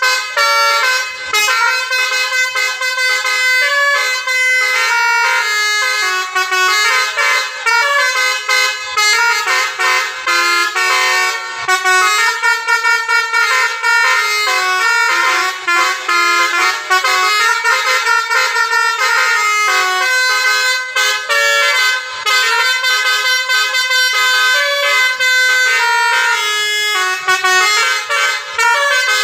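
Multi-tone telolet bus horn playing a fast melody of many short, stepped notes, loud and nearly unbroken.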